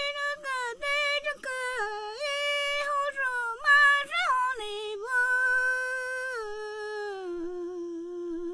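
A woman singing unaccompanied in a high voice, holding long notes that step and slide gradually lower, ending on a long held low note.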